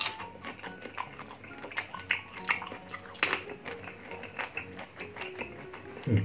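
Close-up chewing of raw green mango: a string of irregular crisp crunches and wet mouth clicks, over faint background music.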